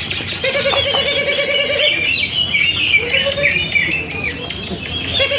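Several caged green leafbirds (cucak ijo) singing at once in a dense tangle of chirps and whistles. A low, fast rattling trill comes in three times: the longest about half a second in, a short one near three seconds, and again at the very end.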